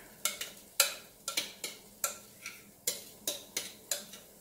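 Kitchen utensil tapping and clinking against a glass bowl of pancake batter: about a dozen sharp, irregular clicks.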